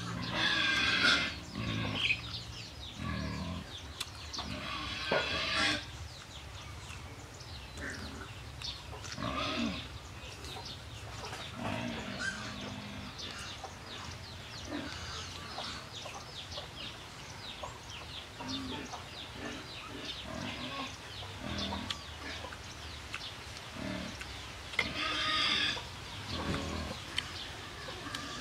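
Crisp bites into fresh lettuce-leaf wraps and steady chewing, loudest about a second in, around five seconds and near the end, with chickens clucking in the background.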